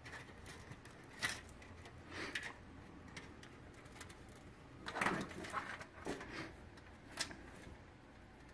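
Small scattered clicks and rustles of thin front-panel connector wires and plastic plugs being sorted by hand inside a PC case, with a few sharper taps spaced a second or so apart.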